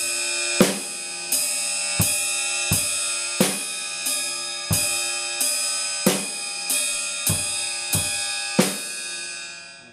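Drum kit playing a slow halftime rock beat: bass drum and an open, washy hi-hat and cymbal struck together about every 0.7 s, with the snare coming half as often, the cymbal wash ringing on between hits. The beat stops and the wash dies away near the end.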